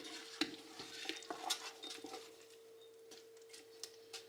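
Light, irregular clicks and scrapes of a spoon stirring a pot of strawberry jam mixture, busiest in the first two seconds, over a faint steady hum.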